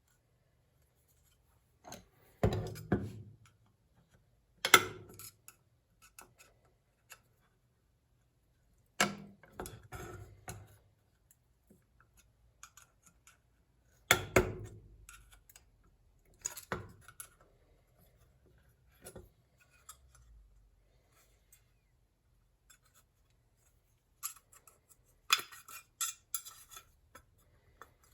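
Hand tools and metal pump parts being handled, in a few separate bursts of knocking and clattering with quiet gaps between; the loudest knocks come about 5 and 14 seconds in, and there is a quick run of sharper clicks near the end.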